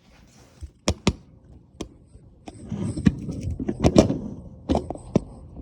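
Several sharp clicks, then a stretch of rustling, rattling handling noise with a few more clicks near the end.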